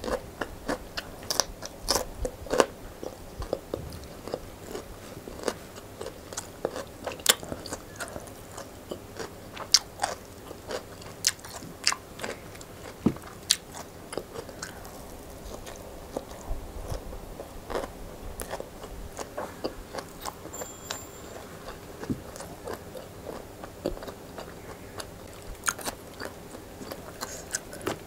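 A person chewing and crunching leafy vegetables, with irregular crisp crunches that grow sparser in the middle and pick up again towards the end.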